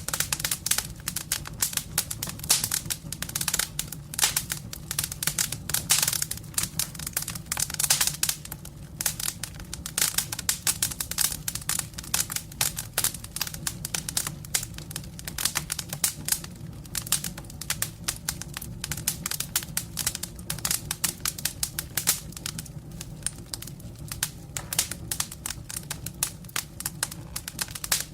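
Campfire crackling with dense, irregular pops and snaps over a steady low rumble.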